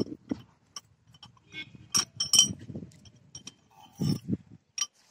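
A series of short, sharp clinks and knocks of hard objects, some ringing briefly. The loudest come about two seconds in, with a few more knocks near the end.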